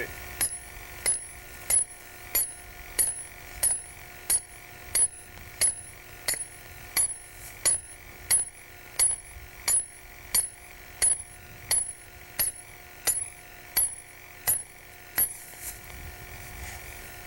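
Hammer driving an iron snare stake into the ground: about two dozen evenly paced metal-on-metal blows, roughly three every two seconds, that stop about two seconds before the end.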